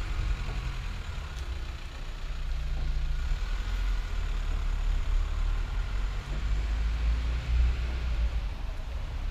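City street background with a steady low rumble that swells and fades a little.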